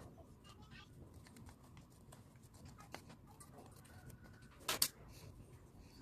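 Faint scratching and light ticking of a metal screwdriver tip working powder into a small plastic switch housing, with a sharper double click near the end.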